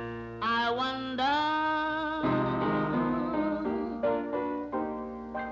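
A slow ballad with piano and other instruments, a long melodic line held and bent near the start, then settling into softer chords that begin to fade toward the end.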